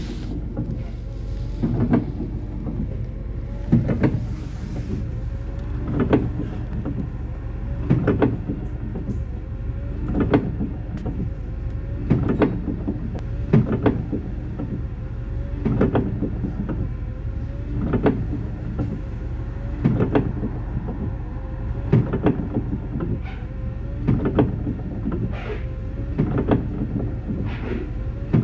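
Bus interior: a steady low engine and road rumble, with a short knock repeating about every two seconds.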